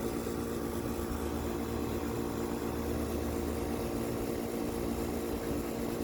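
A 2019 Carrier Comfort central air conditioner's outdoor condensing unit running steadily: an even, multi-tone compressor hum over the low rumble of the condenser fan. It is well into a long cooling cycle and has not yet shut off.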